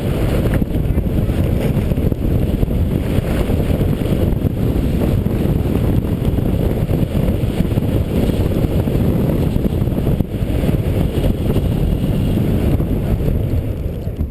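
Wind rushing over the microphone of a skier's camera during a downhill run on snow: a loud, steady, low rumble.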